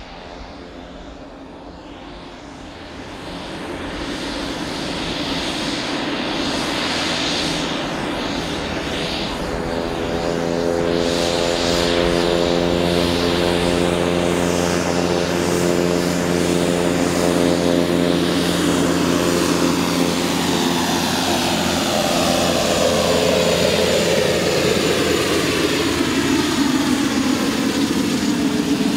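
A Pilatus PC-12/47E's single Pratt & Whitney PT6A-67P turboprop engine and propeller are running as the aircraft taxis. The sound grows louder over the first ten seconds as a steady propeller drone with a high whine over it. In the last several seconds the pitch falls as the plane goes past.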